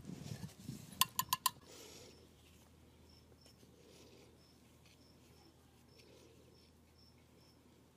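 Hands working PVC pipe and fittings while cementing a joint, with four quick sharp clicks about a second in. After that, faint short high-pitched chirps repeat every half second or so.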